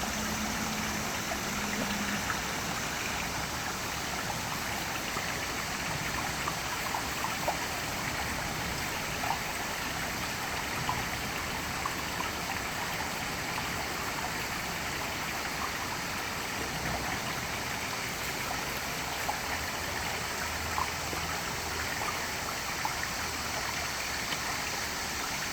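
Mountain valley stream running steadily, a continuous rush of water with scattered faint ticks.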